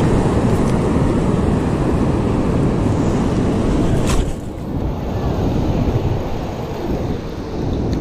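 Heavy surf breaking and washing up the beach, with wind rumbling on the microphone. A single sharp click comes about four seconds in, and the rumble eases after it.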